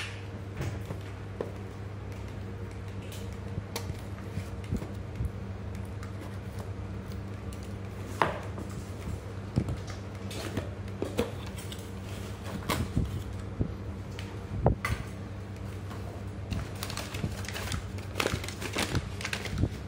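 Hands unpacking a cardboard parcel: scattered taps, scrapes and tape being picked and pulled at the box, then a busier crinkling of crumpled paper and plastic packing pulled out near the end, over a steady low hum.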